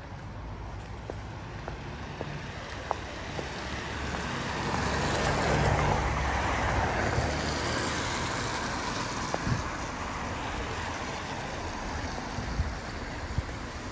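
A car passing on a wet, slushy road: tyre hiss swells up over a few seconds, peaks, then fades away over a low rumble. A few light footsteps in snow tick through the first seconds.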